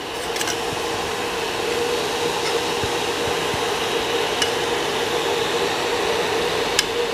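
Steady whirring hum of an induction cooktop's cooling fan, with a few faint clicks from fingers pressing grated coconut into a steel puttu tube.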